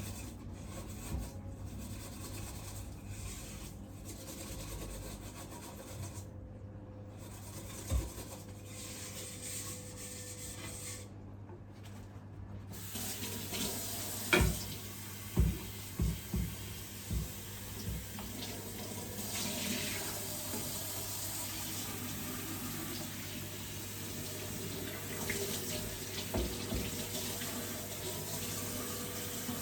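Water running from a tap into a sink, getting louder about twelve seconds in, with a cluster of sharp knocks soon after and a few more near the end as items are handled in the sink.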